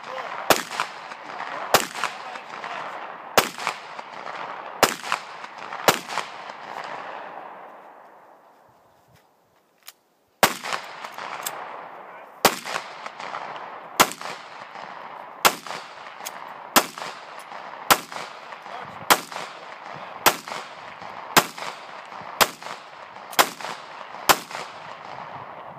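Pistol shots with a rolling echo after each: about five shots in the first six seconds, a pause of a few seconds, then a long string of more than a dozen shots at roughly one a second or faster.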